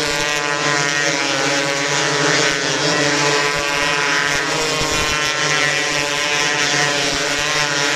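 Several 270-class micro sprint cars lapping a dirt oval on warm-ups, their engines running together at a steady level, several engine notes overlapping and wavering slightly as the cars go around.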